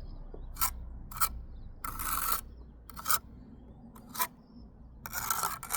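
Bricklayer's trowel scraping mortar against brick in short strokes, about six of them, with longer scrapes about two seconds in and near the end.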